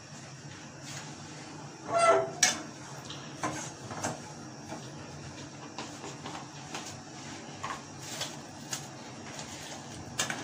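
A metal spoon stirring sugar and water in a stainless steel saucepan for sugar syrup, scraping and clinking against the pan, with the loudest clatter about two seconds in. A steady low hum runs underneath.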